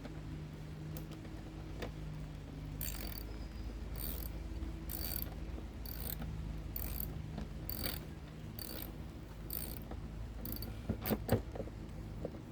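Ratcheting clicks in a steady rhythm, about one burst every two-thirds of a second, while a new drive wheel is fitted on a self-propelled lawn mower, followed by a few sharper clicks near the end.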